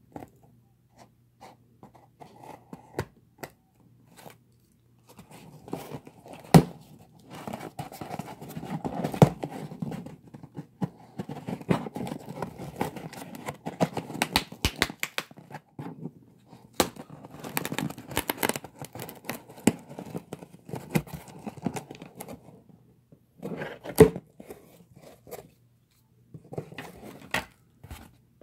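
A knife blade cutting and scraping along packing tape on a cardboard shipping box, with tape tearing and cardboard rubbing and crinkling as the box is opened. It comes in stops and starts, with a few sharp knocks from handling the box.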